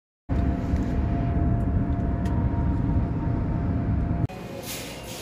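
Steady low road rumble inside a moving vehicle, coming in abruptly after a brief silence. About four seconds in it cuts off suddenly to a quieter, hissier background.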